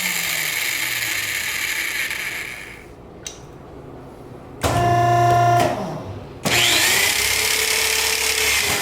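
Power drill driving an M5.5x55 self-drilling steel screw. The drilling noise stops about three seconds in. A short, steady, high-pitched whir follows about two seconds later, and the drill starts again under load, rising in pitch, near the end.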